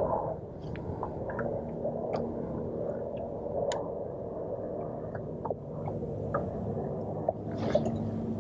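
Bass boat's electric trolling motor humming steadily, with scattered small ticks.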